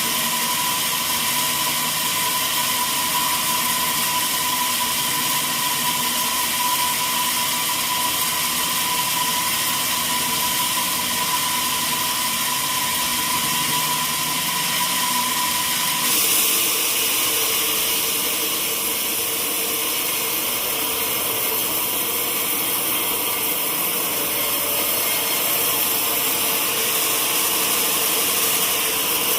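Sawmill saw and machinery running steadily through teak, a dense steady noise with a high whine. About halfway through, the sound shifts abruptly to a lower whine with a brighter hiss on top.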